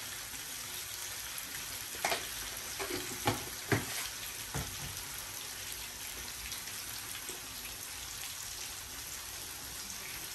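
Fish pieces frying in hot oil with a steady sizzle, and a few short knocks between about two and four and a half seconds in.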